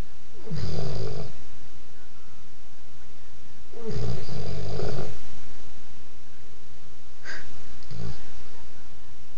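Snoring in slow, separate breaths: one snore about half a second in, a longer two-part snore near four seconds, and a shorter broken snore a little past seven seconds.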